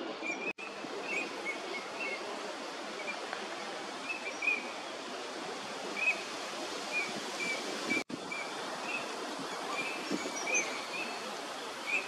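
Eurasian teal drakes giving many short, high, whistled calls, one every second or so, over a steady background hiss; the sound cuts out briefly twice. The uploader takes the calling for pair-formation behaviour.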